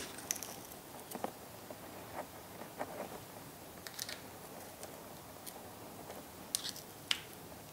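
Faint, scattered metallic clicks and light scraping from a small hand tool picking at the eyelet hardware of a RockShox Monarch rear shock, about one tick a second.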